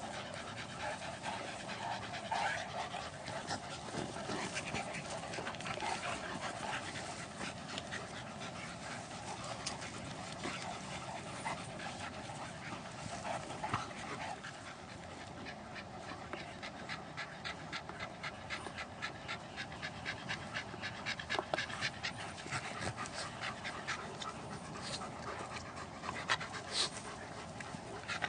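A husky and a large black shaggy dog play-fighting, panting hard in quick rhythmic breaths, with scattered sharper noises; the breathing grows denser and more regular in the second half.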